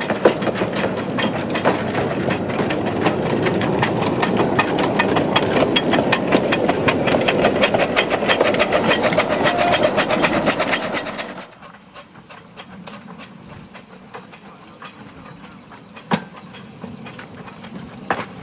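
15-inch gauge miniature steam locomotive running close by, a loud steam hiss over rapid clicking of its wheels on the track. About eleven seconds in the sound drops abruptly to a quieter hiss with scattered clicks.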